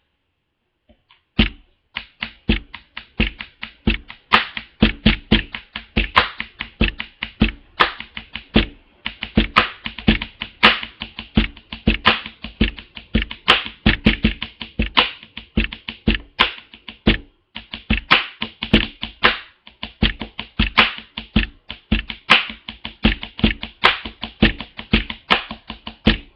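Pen tapping: pens drummed rapidly on a surface in fast, rhythmic runs of clicks, starting about a second and a half in and broken by a few short pauses.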